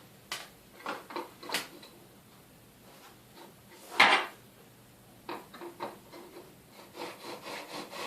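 Scattered clicks and knocks of rigid PVC glazing strips being handled, the loudest about four seconds in. Near the end a fine-tooth saw starts cutting a PVC strip in a mitre block, about four strokes a second.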